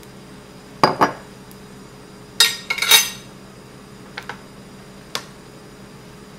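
Metal kitchen utensils clinking and knocking as they are handled and set down around a pot and countertop. There are two knocks about a second in, a busy clatter around two and a half to three seconds, and then a few lighter taps.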